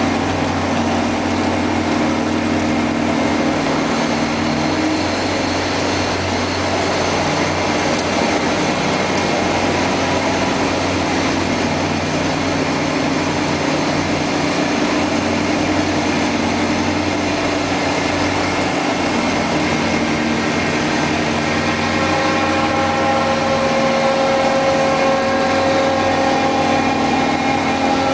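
Five-axis CNC milling machine running, a steady mechanical hum with whining tones that shift in pitch several times.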